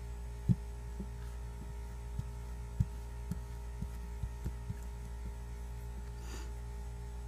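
A steady low electrical hum with about ten soft, dull taps and knocks over the first five seconds: a phone being handled and tapped while it is tested.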